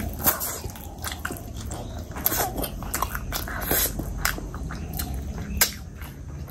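Close-miked eating: a person chewing a big hand-fed mouthful of rice and curry, with wet smacking and irregular sharp clicks of the lips and mouth.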